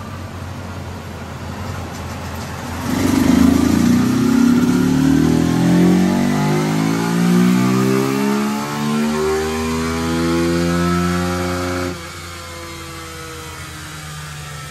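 Carbureted Honda 150 single-cylinder motorcycle engine making a run on a chassis dynamometer. It runs low at first, goes to full throttle about three seconds in, and its revs climb steadily to about twelve seconds. Then the throttle is shut and it drops suddenly back to idle.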